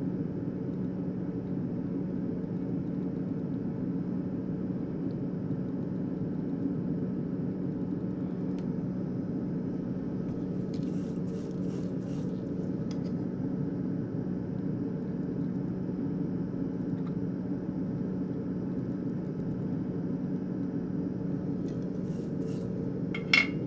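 A steady low hum over a constant rumbling background noise, with a few faint light clicks around the middle and again near the end.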